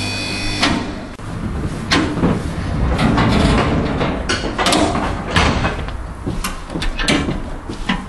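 Micro Balers TC20 twin-chamber baler's single-phase electric motor humming steadily, then cutting out under a second in. Irregular metal clanks and knocks follow as the steel chamber door's latches are worked and the door is swung open.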